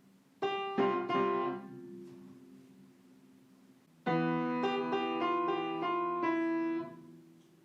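Piano notes being played. A few notes are struck about half a second in and left to ring. After a pause, a quicker run of notes starts about four seconds in and dies away near the end.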